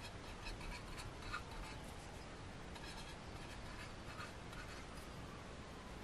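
Faint, scattered light clicks and scratches of plastic keyboard switches and a glass mason jar being handled.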